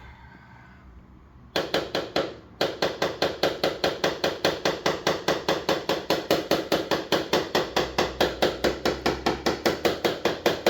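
Rapid, even light hammer taps on metal, about five a second, starting about a second and a half in after a brief pause: tapping down a dent in a car body panel during paintless dent repair.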